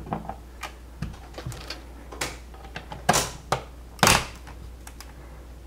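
Plastic clicks and snaps from a snap-on screwless wall plate being pressed onto its mounting plate around a GFCI receptacle: a few lighter clicks, then the loudest snaps about three and four seconds in.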